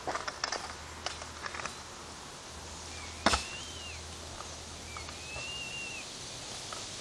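A run of sharp clacks and knocks in the first two seconds and one loud knock about three seconds in, with two short whistled calls that rise and fall, around three and five seconds in.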